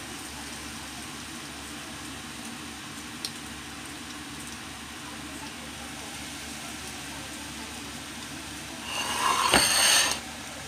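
Breaded potato croquettes (korokke) deep-frying in hot oil with a steady sizzle. A louder burst of noise comes about nine seconds in and lasts about a second.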